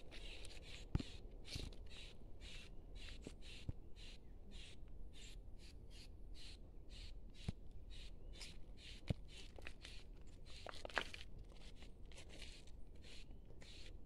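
Steady, rapid raspy chirping from wildlife in the bush, about three chirps a second, with a few sharp snaps scattered through, the loudest about a second in.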